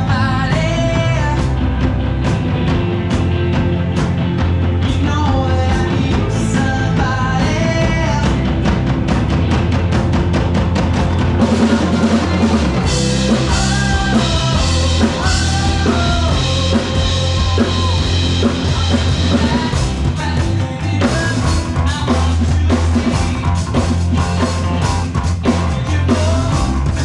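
Live rock band playing, with a singer over drum kit, bass and guitar.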